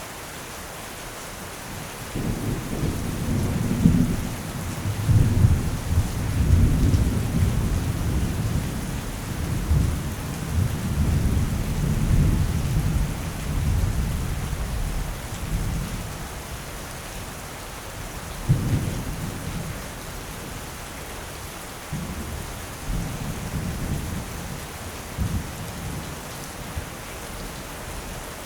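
Steady rain with thunder. A long rolling rumble starts suddenly about two seconds in and dies away by the middle, then a sharper clap comes and a few shorter rumbles follow near the end.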